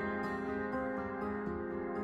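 Soft instrumental background music, with held notes that change every half second or so.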